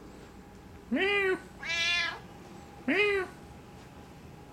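Siamese cats meowing: three loud meows about a second apart, each rising and then falling in pitch, the middle one higher.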